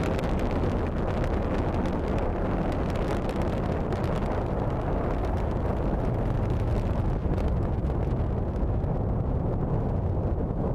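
Atlas V rocket's RD-180 first-stage engine firing during ascent: a steady, dense rumble that stays strongest in the low end.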